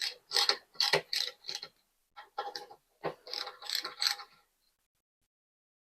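Hand ratchet wrench clicking in short back-and-forth strokes, about two to three a second, turning a handlebar riser bolt; it pauses briefly about two seconds in and stops after about four and a half seconds.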